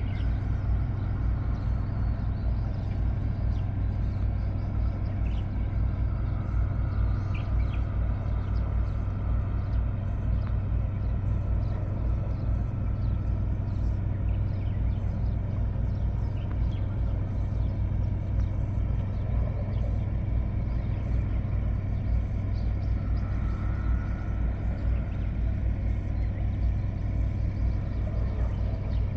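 Boat's engine running at a steady low drone, heard from on board while under way.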